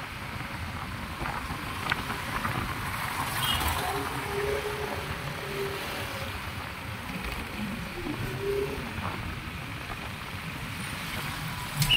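Riding noise from a motorcycle: steady wind rush and engine and road rumble, with other traffic passing.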